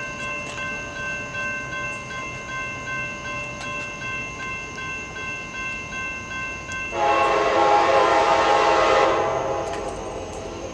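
A railroad grade-crossing warning bell rings steadily while the crossing gates lower. About seven seconds in, an approaching train's locomotive horn sounds one long blast of about two seconds, much louder than the bell, then fades.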